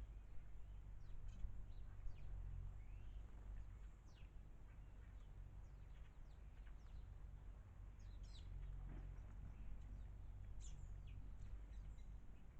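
Wild garden birds chirping: many short, high, downward-sliding calls scattered irregularly, over a faint steady low rumble.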